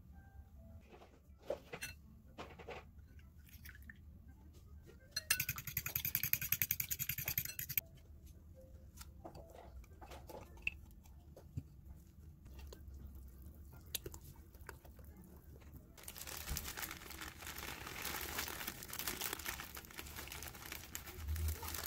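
Kitchen handling sounds on a bowl: a few scattered clicks and knocks, then a couple of seconds of rapid tapping. From about two-thirds of the way in comes a steady rustle of dry boxed brownie mix being poured from its bag into the bowl.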